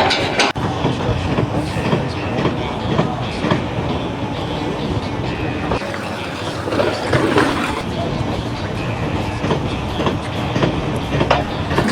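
Steady, loud mechanical rumble and clatter, with many short clicks and knocks through it.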